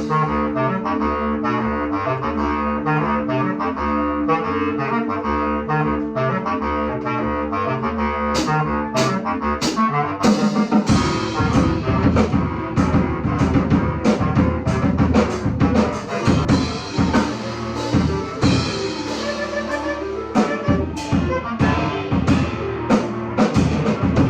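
Bass clarinet ensemble playing a heavy metal piece: a low, chugging, repeated riff under held notes. A drum kit comes in hard about ten seconds in, with cymbal crashes and heavy beats.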